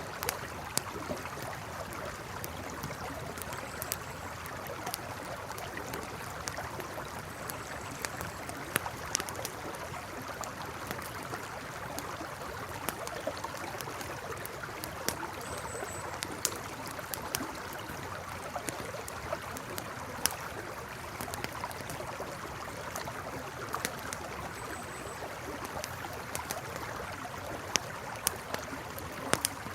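A river flowing steadily, with a campfire crackling and popping in sharp irregular snaps over it. Faint short high chirps come a few times.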